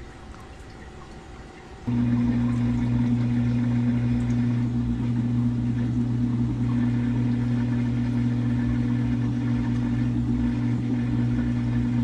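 Samsung top-load washing machine in its spin cycle. About two seconds in, a loud, steady low motor hum starts suddenly as the drum spins fast.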